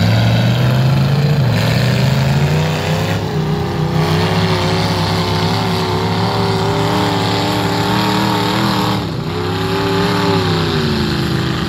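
Lifted mud truck's engine revving hard under load as it churns through a mud pit, its pitch wavering up and down, with a brief drop about nine seconds in before it picks up again.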